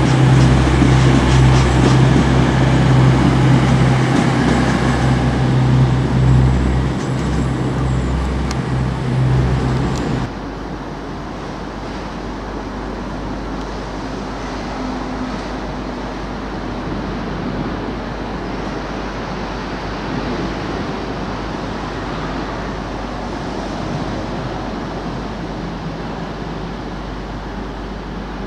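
A Class 222 Meridian diesel multiple unit running past the platform, loud, with a strong low hum from its engines. About ten seconds in the sound cuts off abruptly to a much quieter, steady rumble as a Class 170 Turbostar diesel unit approaches slowly.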